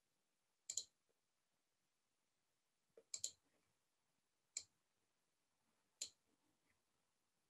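A few isolated clicks of a computer mouse: a pair just under a second in, a quick cluster about three seconds in, then single clicks about four and a half and six seconds in, with near silence between.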